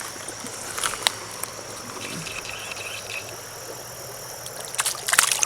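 Insects trilling steadily, a continuous high-pitched buzz. A few sharp clicks come about a second in, and a louder patch of crackling clicks comes near the end.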